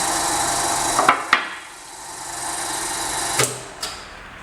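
FX95 hydraulic hose crimping machine running, its motor and hydraulic pump giving a steady whine. There are two sharp metallic clicks about a second in, after which the running stops. It starts again more quietly and ends with a clack near the end.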